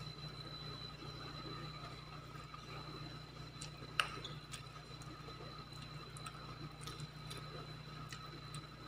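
Metal spoon clinking and scraping against a ceramic bowl while scooping rice, with one sharp clink about four seconds in and a few faint ticks after it, over a steady background hum.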